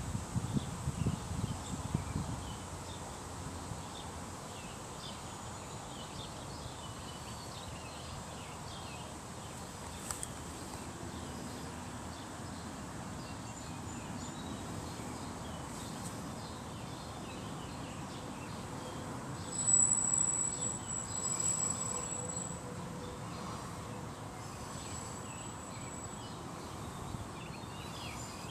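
Outdoor ambience: a steady insect buzz with scattered small chirps. A louder, high-pitched chirping stands out for about two seconds near the twenty-second mark, and there is a low rumble in the first two seconds, like wind or handling on the microphone.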